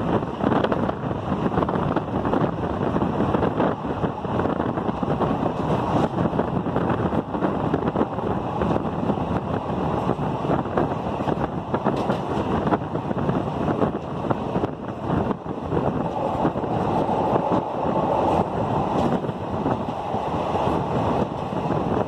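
Running noise of a moving train heard from an open window or door: a steady rush of wheels on the rails with wind buffeting the microphone, and occasional brief clicks.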